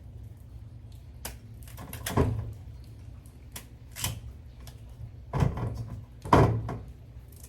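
Knife cutting through cassava root in several irregular knocks, the loudest near the end.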